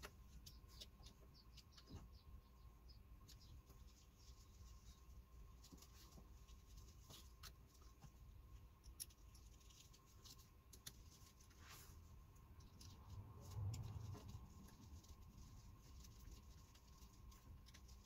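Near silence with faint, scattered light clicks and scrapes of a starter motor's metal end housing being handled and turned in gloved hands to line up its screw holes.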